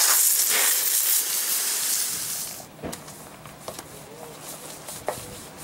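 Garden hose spraying water onto a metal screen door frame and the grass, a loud hiss that stops about two and a half seconds in. Then quieter scrubbing of the frame with a long-handled brush, with light scattered knocks.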